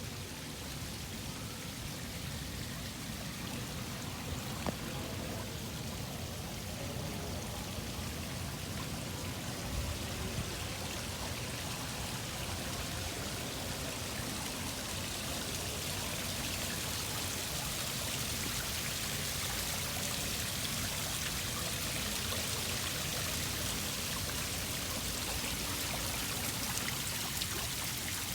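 Steady rushing noise, water-like in character, gradually growing a little louder, with a few faint ticks.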